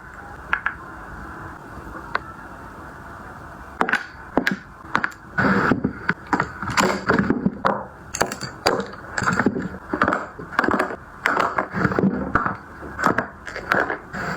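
A steady low background hum, then from about four seconds in a quick, irregular run of clicks, taps and knocks with some rustling: hard objects being handled and set down.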